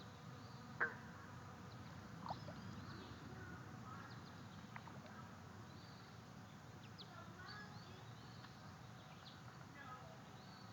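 Faint outdoor ambience of small birds chirping now and then in the background, over a steady low rumble, with a sharp click about a second in and a softer one a second or so later.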